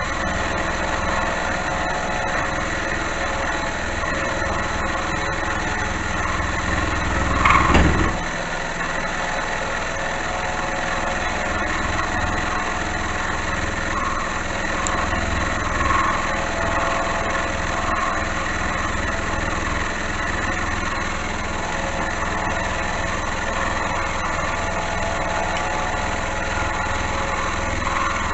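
Small benchtop milling machine (Amadeal XJ12) running steadily as its cutter machines the stock, with a brief louder clunk about eight seconds in.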